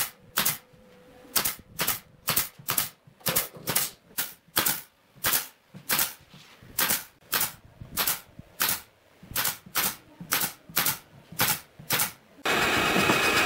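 Pneumatic brad nailer firing in quick succession, about two to three shots a second with a short pause about six seconds in, driving brads through a pine frame into a wooden lattice panel. Near the end a loud, steady mechanical noise starts and keeps going.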